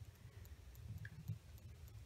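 Quiet room with a faint low hum and a couple of light clicks, about a second in, from the metal halves of a small-engine carburetor being handled.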